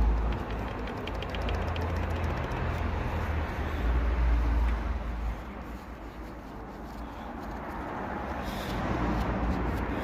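BMW B47 four-cylinder diesel engine running with a regular sharp knocking, a rod knock from oil starvation.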